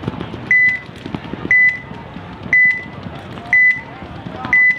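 Electronic beeper sounding a short high beep once a second, five times, over steady background noise.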